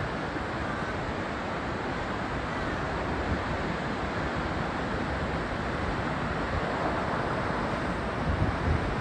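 Steady rushing of a waterfall, with a few low gusts of wind on the microphone near the end.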